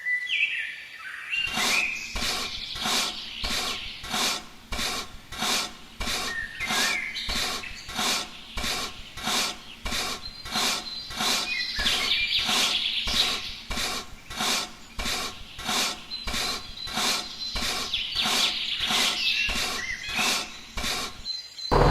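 Steady rhythmic rasping strokes, about two a second, of a hand tool being worked back and forth against a rough surface.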